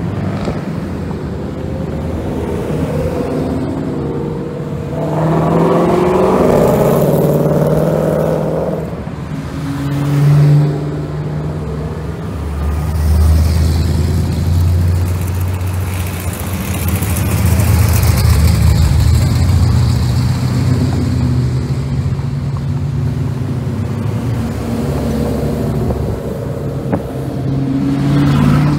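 Ford Mustangs driving by one after another, their exhausts rumbling, with one revving up about six seconds in and a long low drone of passing engines after.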